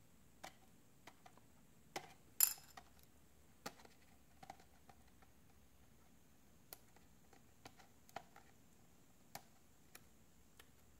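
Fingernails picking at and peeling the liner off the double-sided adhesive tape on an iPad digitizer's frame: scattered faint clicks and ticks, with one louder crackling scrape about two and a half seconds in.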